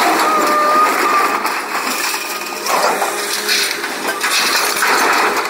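Scrap metal clattering and grinding as it is moved and dropped, with a brief metallic squeal near the start and several louder surges of clatter.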